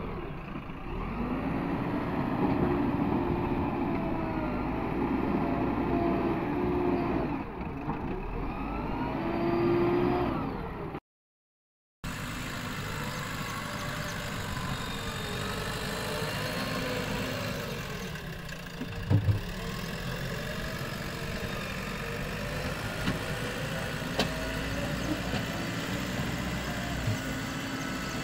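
JCB 3DX backhoe loader's diesel engine running and revving up and down over and over as it works its loader. The sound drops out for about a second some eleven seconds in, and a pair of short low knocks come a little after midway.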